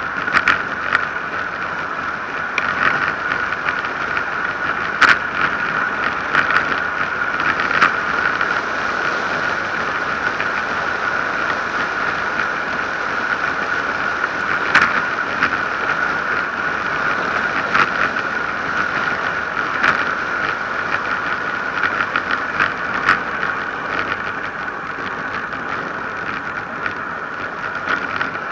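Road bike descending fast on asphalt: a steady rush of wind and tyre noise, broken by irregular sharp clicks and rattles as bumps in the road jolt the bike.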